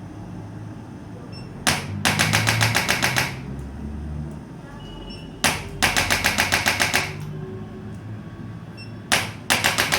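Three bursts of rapid mechanical clicking from a handheld chiropractic percussive adjusting instrument, about ten clicks a second. Each burst lasts about a second and a half and opens with a single sharp click.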